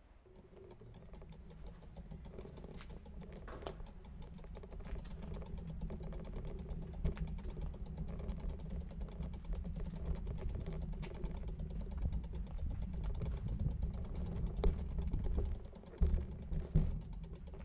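Bicycle rolling over a tiled terrace with a camera mounted on it: a low rumble with fast, fine clicking, and a few louder knocks near the end.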